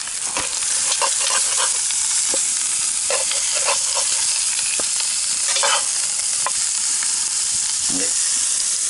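Lamb shanks sizzling steadily as they brown in a hot cast-iron Dutch oven over coals, with no oil, in their own fat. Metal tongs click and scrape against the pot now and then as the shanks are turned.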